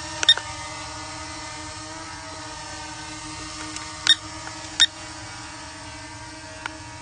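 HS175D quadcopter drone hovering, its propellers giving a steady pitched buzz. A few short, sharp clicks cut through it: one just after the start, two about four and five seconds in, and a fainter one near the end.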